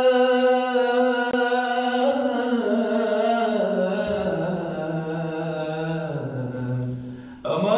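A man singing solo without accompaniment in the style of the classic Egyptian greats. He holds one long note, then draws out a slow ornamented run that steps down in pitch, and breaks off near the end before starting a new, higher note.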